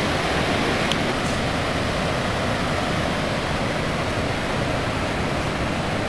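Steady rushing noise of Niagara Falls' water crashing into the gorge.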